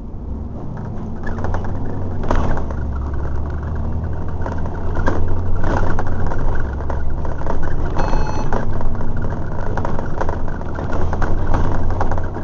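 Double-decker bus's diesel engine running under load as the bus drives along, heard from inside on the upper deck, louder from about two seconds in, with the body rattling. A short beep sounds about eight seconds in.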